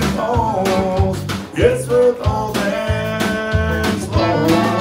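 Live country band playing, with a male vocalist singing over guitar.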